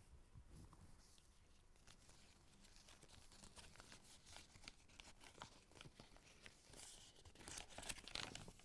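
Faint rustling and clicking of paper and cardboard as things are handled in a box, rising near the end to louder paper tearing and crinkling.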